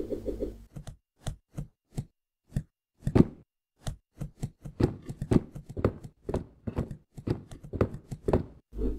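A quick, irregular run of short knocks and thuds, cartoon sound effects of boxes being unloaded and stacked, coming thicker and faster in the second half.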